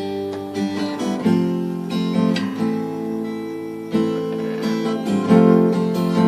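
Acoustic guitar strummed in a slow rhythm between sung lines, each stroke letting chords ring.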